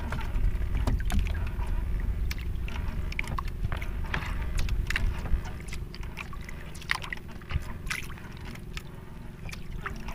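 Fishing hand line being hauled in hand over hand from a small boat: irregular short scrapes, taps and drips of water as the wet line comes over the side. Under them is a low rumble, heaviest in the first few seconds, and a faint steady hum.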